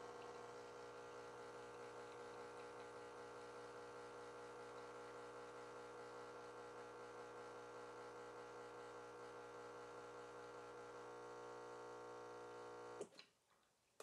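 Breville Barista Touch Impress espresso machine's pump humming faintly and steadily while extracting a single shot. The hum thins slightly about eleven seconds in, then cuts off suddenly near the end.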